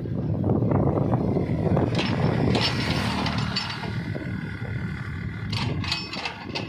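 Mini excavator engine running, with several sharp knocks about two seconds in and again near the end.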